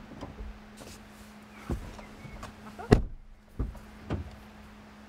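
A few short knocks and clicks of fittings being handled in the back seat of a car, the loudest about three seconds in, over a faint steady hum.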